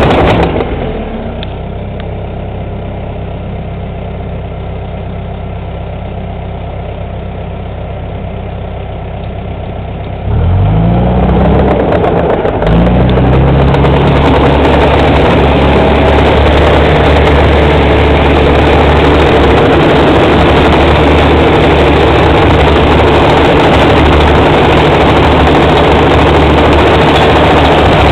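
Bulldozer's diesel engine drops to a steady idle within the first second. About ten seconds in it revs up twice in quick succession, then runs loud and steady at high revs.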